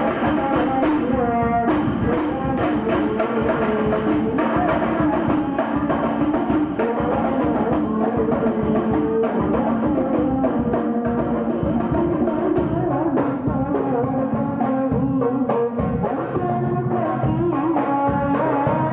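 Hadroh devotional music: frame drums and jingles beaten in a dense, fast rhythm under a sustained melody line. The high jingling thins out about two-thirds of the way through.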